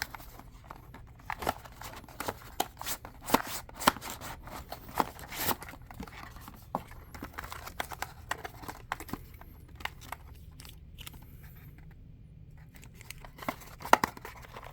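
Unboxing packaging being handled: rustling and crinkling with many short sharp clicks and taps, busiest in the first half and again near the end.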